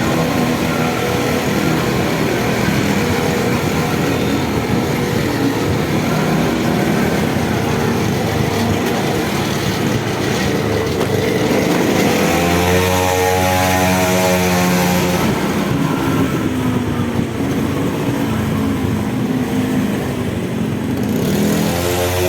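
Small grass-cutter engine mounted on a bicycle running steadily, its revs rising about halfway through and again near the end.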